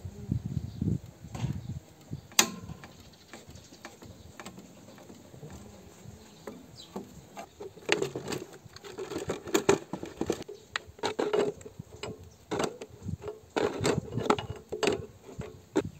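Hand tools working a stuck screw on a tractor engine: irregular metal clicks and rattles, coming in dense runs of sharp clicks in the second half.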